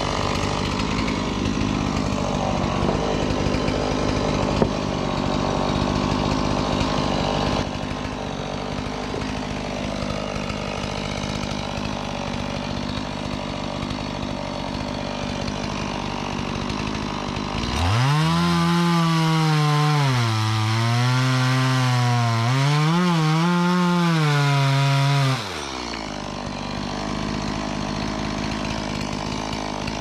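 Stihl chainsaw running and cutting wood. Past the middle the engine is loudest for about seven seconds, its pitch wavering up and down under load in the cut, then it drops back to a lower steady run.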